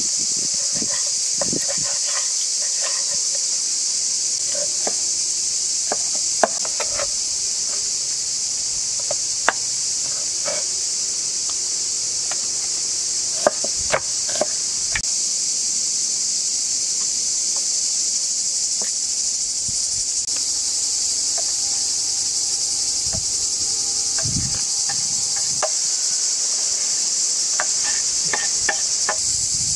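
A steady, high-pitched insect chorus, with scattered short clicks and taps of a knife on a wooden cutting board as raw beef ribs are cut apart.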